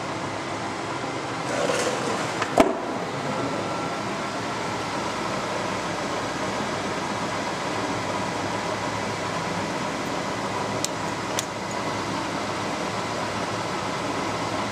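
LeBlond Regal Servo-Shift engine lathe running steadily under power, a constant mechanical hum from its drive and gearing. A sharp click comes about two and a half seconds in, and two faint ticks follow later.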